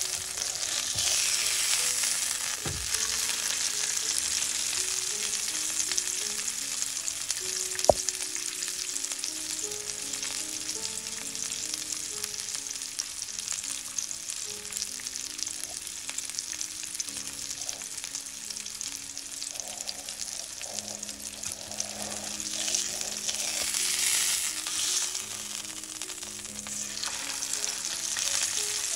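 Wagyu beef steak sizzling steadily in hot fat in a copper frying pan, the sizzle swelling louder a few times as the steak is moved and turned with metal tongs. One sharp click about eight seconds in.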